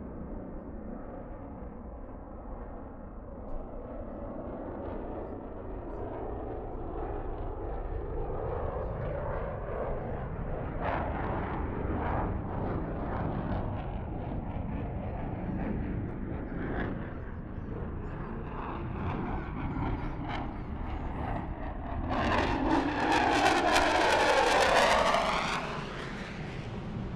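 Distant military jet fighter engine noise, a continuous low roar with crackling through the middle. About 22 seconds in a jet passes closer and swells much louder for about four seconds with a sweeping, phasing hiss, then drops back to the distant rumble.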